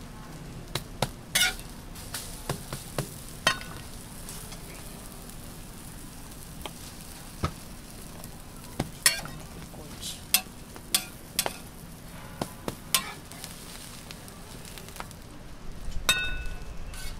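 Egg omelette sizzling steadily on a flat-top griddle, with sharp clicks and taps scattered through and a short ringing clink near the end.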